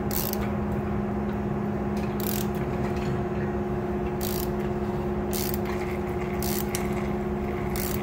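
A steady hum throughout, with short high rasps every one to two seconds: a ratchet wrench being worked back and forth to turn a motorcycle engine over by hand.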